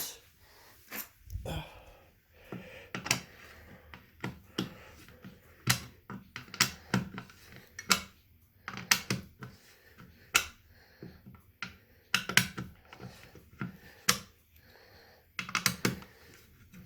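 Irregular sharp clicks and knocks, a dozen or more spread unevenly, from hands working a fire alarm pull station and control panel during a reset.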